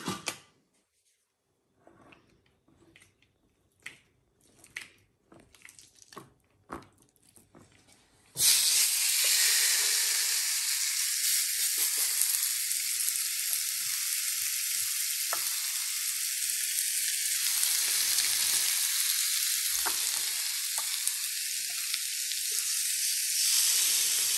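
Marinated chicken breast sizzling on the hot ribbed plate of an electric contact grill. The steady hiss starts suddenly about eight seconds in, as the meat goes down on the plate, and follows a stretch of only faint clicks.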